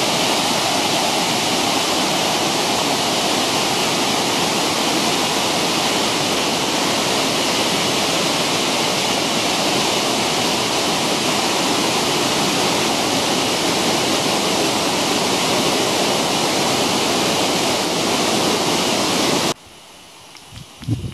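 Waterfall rushing steadily, a loud even roar of falling water that cuts off suddenly near the end.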